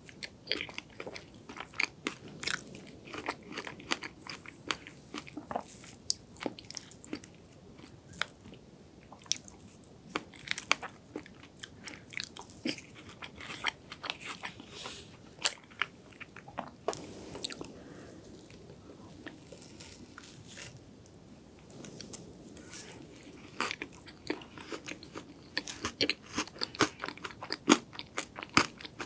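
Close-miked chewing of chocolate sand cake with a crispy crunch layer inside: a running stream of small crisp crackles and wet mouth sounds. It thins out past the middle and grows denser near the end.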